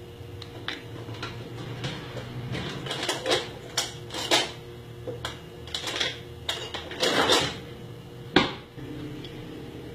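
Kitchen utensils being handled: a spoon and dishes clinking and scraping in irregular knocks, the sharpest about eight seconds in, over a steady low hum.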